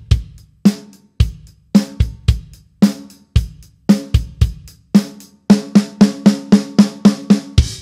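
A drum kit plays a groove of bass drum and snare with hi-hat. In the second half it runs into a fill of evenly spaced drum strokes, about four a second, and ends on one last accented hit that cuts off abruptly.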